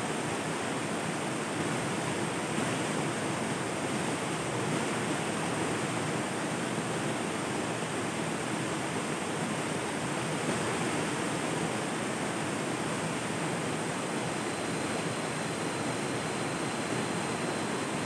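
Flowing river water, a steady even rushing with no breaks.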